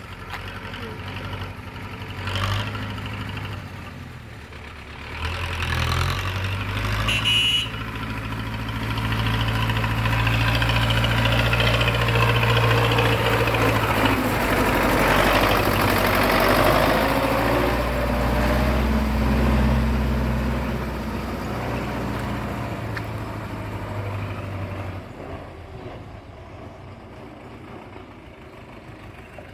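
MTZ tractor engine running, with a steady low drone that builds up over the first several seconds, holds, then eases off and drops away about 25 seconds in.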